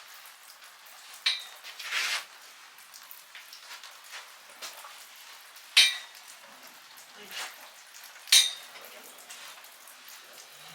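Steady rain hiss with three sharp metallic clinks about a second, six seconds and eight seconds in.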